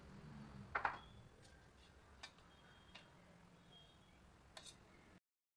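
Faint small clicks and taps of a spoon against a steel mixing bowl as spices go in, with a sharper double click about a second in. The sound cuts off to dead silence near the end.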